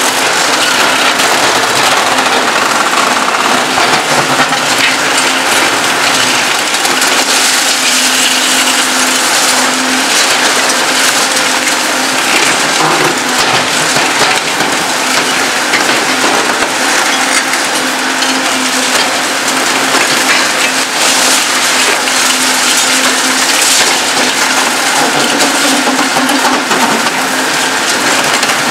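Reinforced concrete being crushed by a Demarec DCC-75 hydraulic concrete shear on a Volvo EC 750E demolition excavator: continuous crunching and grinding with frequent sharp cracks, over a steady low hum from the machine.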